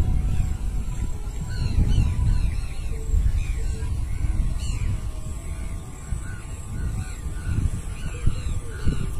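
Birds calling over and over, many short rising-and-falling calls several a second, over a loud low rumble.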